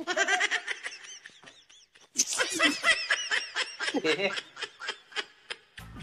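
A man and a woman laughing together in quick pulsing bursts, with a pause of about a second just after the start before the laughter picks up again and trails off.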